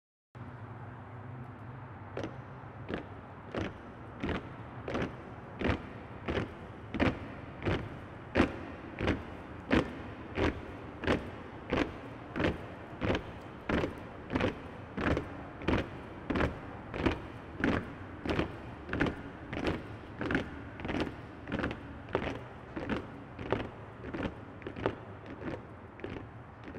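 Steady low city-street drone with the heavy, regular footfalls of a crowd walking in step over it, about three steps every two seconds, starting about two seconds in.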